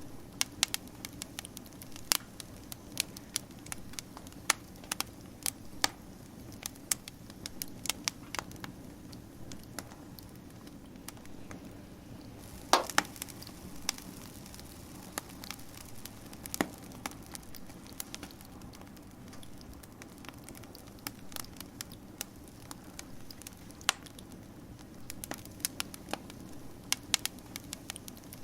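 Campfire crackling: irregular sharp pops and snaps over a low, steady rumble of the burning, with one louder pop about halfway through.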